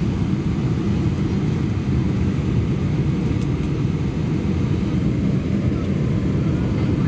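Steady low roar of engine and airflow noise heard inside the passenger cabin of a Boeing 747-400 as it descends to land.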